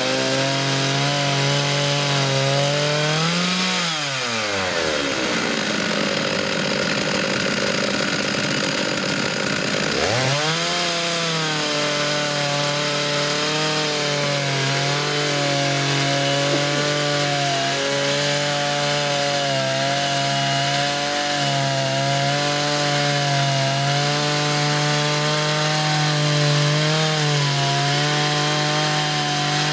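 Two-stroke chainsaw engines running at high revs as they rip a squared timber lengthwise on a rail-guided chainsaw mill. One engine's pitch falls away about four seconds in and climbs back up about ten seconds in.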